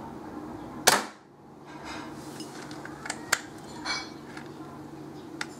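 Homemade pre-charged pneumatic airgun firing one loud, sharp shot about a second in. A few lighter metallic clicks and clinks follow over the next few seconds.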